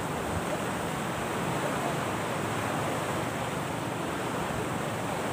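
Steady rush of wind and small waves at the shoreline, with wind buffeting the microphone.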